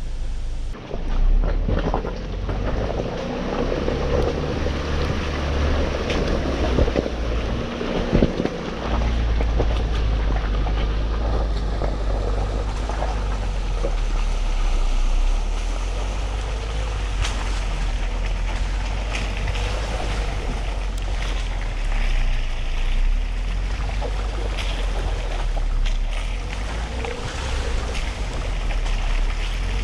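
A 2020 Ford Ranger pickup driving off-road, a steady low rumble with wind noise on the microphone and a few knocks about eight seconds in.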